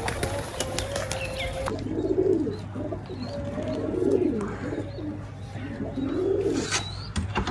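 Domestic pigeons cooing, three low coos about two seconds apart.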